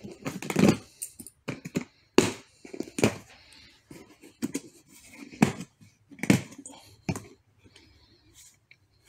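Latches of a hard plastic rifle case being unsnapped one after another: a series of sharp plastic clicks spread over several seconds, with handling noise of the case between them.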